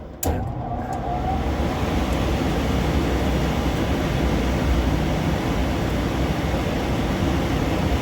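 Furnace blower fan starting with a click and then running steadily, switched on by reconnecting the control board's loose ground wire.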